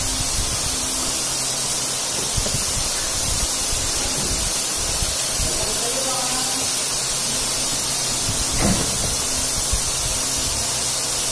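A steady loud hiss with a low hum under it, and faint chewing noises of a man eating with his hands.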